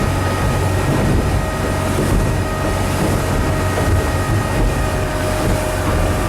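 Motorboat engine running steadily under way: a low drone with a faint steady whine above it.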